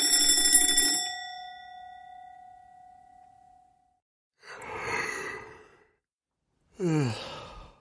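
A bell dings once and rings out, fading over about three seconds. It is followed by a breathy sigh, then a short groan that falls in pitch.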